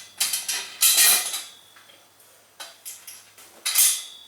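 Steel firewood-rack parts, bolts and washers clinking and rattling as they are handled and fitted, in three short bunches of sharp metallic clicks about a second in, near the middle and near the end.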